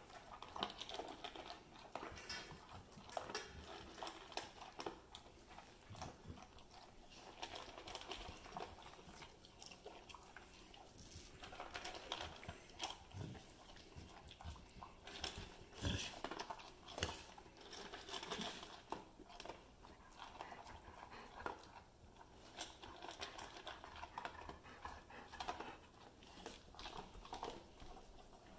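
Golden retrievers eating dry kibble from stainless steel bowls: irregular crunching and chewing with scattered clicks of food against the metal.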